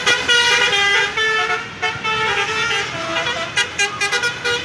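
Basuri telolet horn on a passing tour bus playing a multi-note tune, a run of held notes stepping from pitch to pitch, over the bus's engine and road noise.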